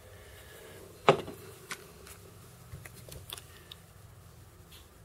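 Small clicks and knocks of a head cement bottle being handled and opened, with one sharper knock about a second in and lighter ticks after it.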